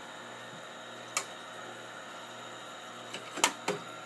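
Sharp clicks from the latch and door of a TRS-80 Model II's 8-inch floppy drive being worked by hand: one about a second in, then two or three close together near the end. A steady machine hum runs underneath.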